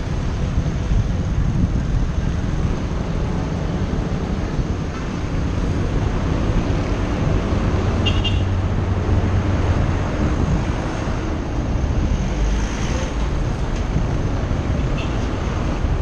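Steady road traffic noise from passing cars and trucks, mixed with wind rushing over the helmet-mounted GoPro Hero 4 Session's microphone as the bike moves. A brief high beep sounds about eight seconds in.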